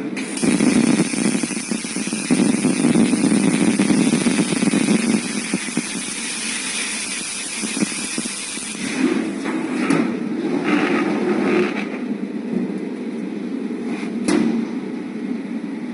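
Welding arc of an automatic CNC welding machine running along a stainless-steel tray seam, a steady noisy hiss for about the first nine seconds. It then drops to quieter, uneven machine noise with a few short surges and one sharp click near the end.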